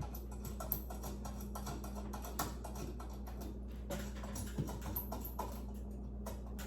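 Background music over a steady low hum, with scattered small clicks and taps.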